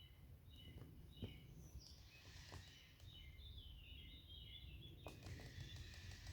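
Faint birdsong: a few short phrases of quick high notes, each phrase stepping downward in pitch, over a quiet, low outdoor rumble.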